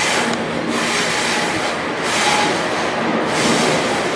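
A train passing on the railway line, a loud steady noise of wheels on rails throughout.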